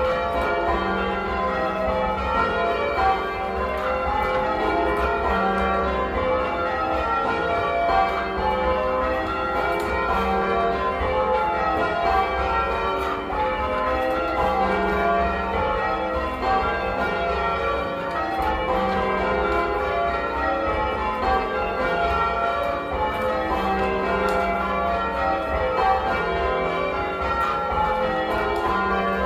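A 1954 Gillett and Johnston ring of eight church bells in full-circle change ringing, the strikes following one another in a steady, unbroken rhythm, each bell's tone ringing on under the next.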